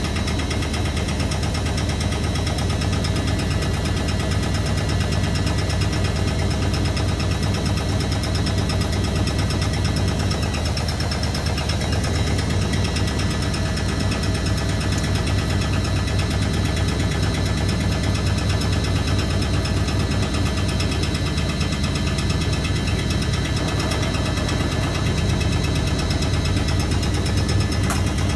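Motor and drum of a 1982 Hoover A3190 Electron 1100 De Luxe top-loading-era front-loader washing machine running a spin-only cycle, a steady low hum with vibration at an even level.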